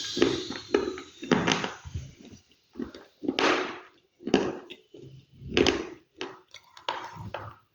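Close-miked chewing of crunchy food: a string of short, irregular crunches, roughly one or two a second, with brief quiet gaps between bites.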